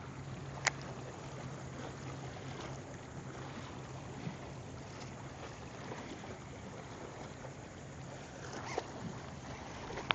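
Ambient sound aboard a small fishing boat on the water: a steady low hum over wind and water noise. A sharp click comes about a second in and another near the end.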